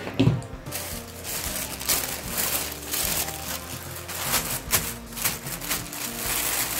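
Tissue paper crinkling and rustling as hands press and crumple it into a wire frame, starting about a second in, over steady background music.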